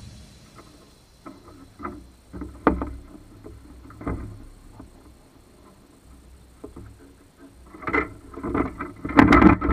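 Scattered knocks and bumps on a small boat as the angler moves about the deck and handles his rod, with a quick run of louder knocks near the end.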